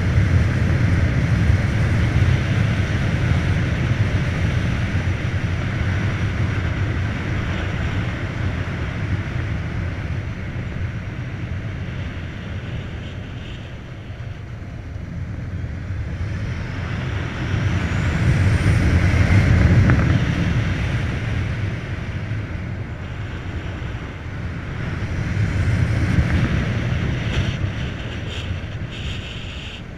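Wind rushing over the microphone of a rider on a Volta BCN Sport electric motorcycle at road speed, mixed with road noise. It is a steady rumbling rush that swells and eases twice, once past the middle and again near the end.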